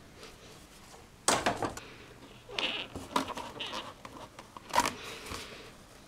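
Hands working EPO foam model-plane parts: a handful of short rubbing scrapes of foam on foam as the glued horizontal stabilizer is pressed and seated into its slot in the fuselage.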